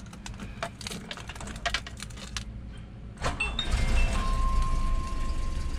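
Keys jingling and clicking at the ignition of a 1985 Volvo 245, then about three seconds in the engine starts and settles into a steady idle. A steady high beep sounds over the idle near the end.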